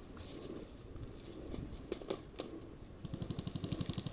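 Handling noise from an airsoft reload: a few faint clicks, then a fast, even rattle of ticks starting about three seconds in.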